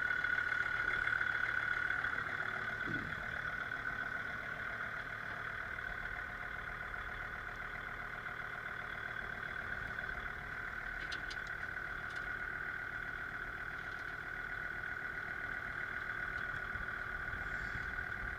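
Kubota L3750 diesel tractor engine running steadily at a constant speed, with a steady high whine over the engine note, as the tractor is readied to run a snow blower.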